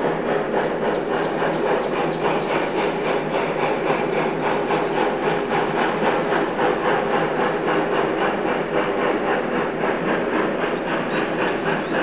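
Steam locomotive running, with a rapid, even beat that stays steady throughout.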